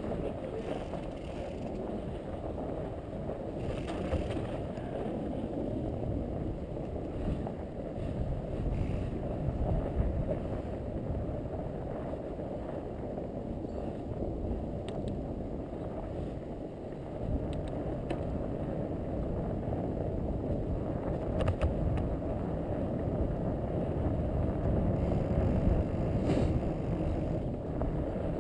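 Fat bike riding through snow: a steady low rolling noise from the wide tyres, with a few faint clicks.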